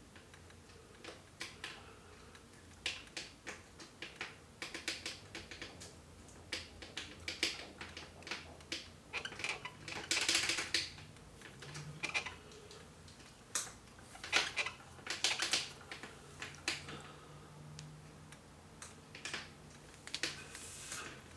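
Irregular small metallic clicks and taps, with a brief scrape about halfway through, as a steel stud and tools are worked into the rocker arm of a vintage Singer 348 sewing machine.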